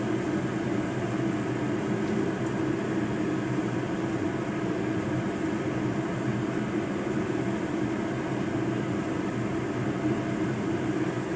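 Steady, unchanging hum of a motor-driven fan, with several fixed tones in it.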